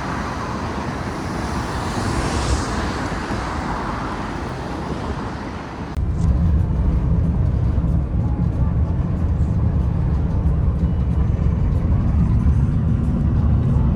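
Road traffic noise with vehicles passing. About six seconds in, it changes abruptly to a louder, steady low rumble.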